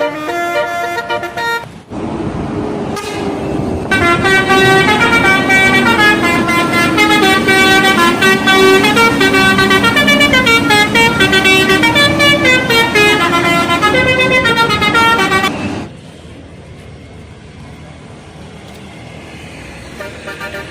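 Indonesian bus 'telolet' horn, a set of multi-tone air horns playing a quick melody of stepping notes. A short phrase sounds at the start and a long, loud one runs from about four seconds in for roughly twelve seconds, followed by quieter road and engine noise before the horn starts again near the end.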